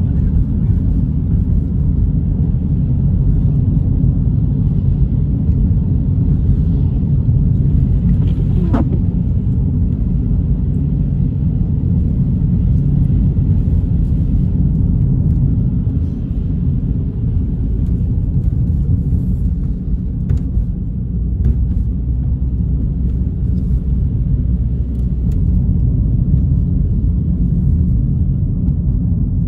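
Steady low road and engine noise inside a moving car's cabin. A short falling squeak comes about nine seconds in, and a few faint clicks come later.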